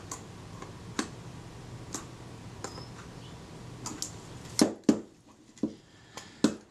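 Faint metallic clicks of a small screwdriver tightening tiny screws in a Kodak Retina IIIc camera, about once a second, then a cluster of louder knocks a little past halfway as the metal camera body is turned over and handled.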